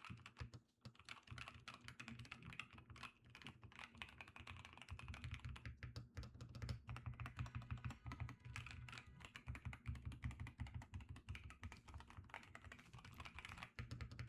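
Continuous typing on a Keychron K2 HE wooden keyboard with magnetic switches: a fast, uneven run of soft keystroke clicks.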